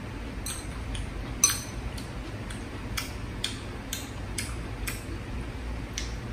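Chopsticks clicking and tapping against a porcelain bowl and the hotpot while eating, a string of light, irregular taps with the sharpest about a second and a half in, over a steady low hum.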